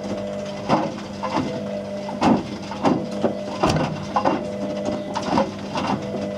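Whirlpool WWDC 7210/1 washing machine running with a steady motor hum as the drum turns, with irregular clunks and knocks, roughly one or two a second, from objects tumbling inside the drum.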